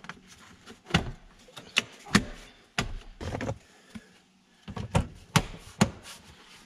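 Plastic interior trim on a pickup's dash being pressed and tapped into place: a string of about nine sharp clicks and knocks with short pauses between, as the clips snap in.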